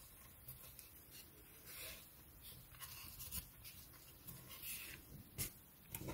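Faint rustling and scratching of fingers handling waxed polyester cord while knotting a thread onto the bundle, with a light click about five seconds in.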